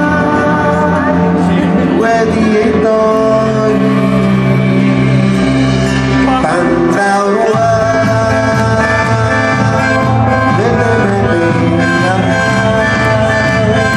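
Live band music played loud through a PA: acoustic guitar, keyboards and drums, with a sung vocal line.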